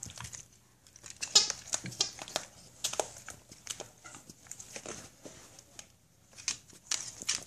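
Dog chewing a plush snake toy with puncture-proof squeakers: irregular chewing and crinkling noises with short high squeaks, the loudest about a second and a half in.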